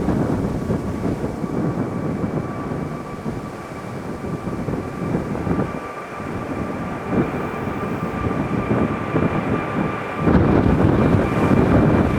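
Jet airliner engines running, a steady high whine over a deep rumble, with gusty wind buffeting the microphone; the rumble swells louder near the end.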